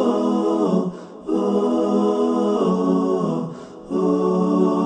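Wordless a cappella vocals, unaccompanied by instruments, holding long hummed notes as the intro to a naat. Three held phrases, each stepping down in pitch at its end, with short breaks about a second in and at about three and a half seconds.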